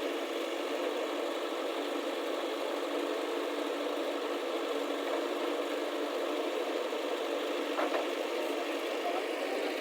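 Diesel engine of a heavy machine running steadily, with one brief knock near the end.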